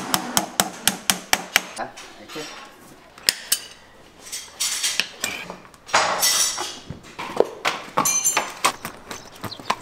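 Farrier's hammer driving horseshoe nails through a steel shoe into the hoof: a quick run of sharp metal taps, about five a second, then scattered single taps and two longer scraping noises.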